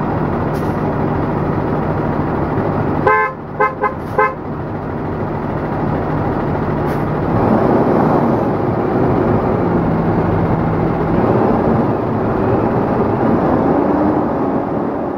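Thomas Saf-T-Liner C2 school bus engine running steadily as the bus moves slowly forward. About three seconds in, a horn gives four short toots. From about seven seconds the running noise grows louder.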